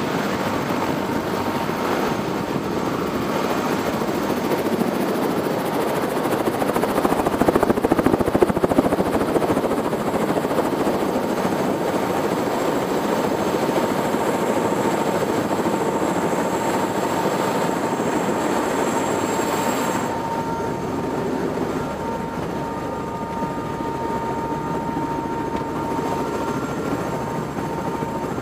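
Helicopter running on the ground at idle: a steady loud rush of engine and rotor with a thin constant whine. About two-thirds of the way through it turns duller, the high hiss dropping away.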